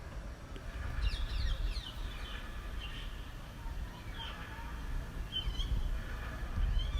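Wind buffeting the phone's microphone, a low gusting rumble, with small birds chirping over it: a quick run of falling chirps about a second in, then single chirps every second or so.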